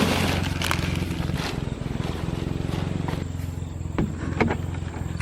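A small motor running with a steady low hum, with a few light knocks over it.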